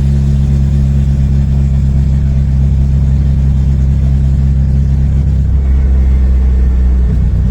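Turbocharged AP 1.9 engine of a VW Voyage running steadily as the car is driven, a low drone whose pitch shifts slightly about five and a half seconds in and again near the end.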